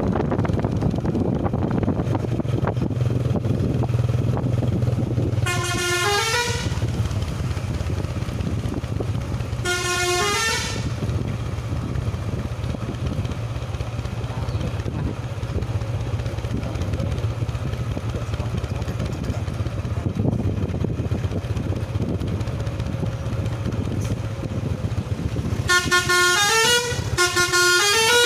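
Tour bus telolet horn playing short stepped-pitch melodies. Two brief runs come about six and ten seconds in, then several runs follow in quick succession near the end, over a steady low engine hum.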